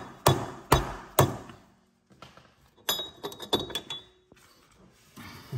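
Hammer blows on steel suspension parts, about two a second, three sharp strikes each ringing briefly. After a pause of about a second and a half comes a cluster of lighter metallic taps and clinks with a faint ring.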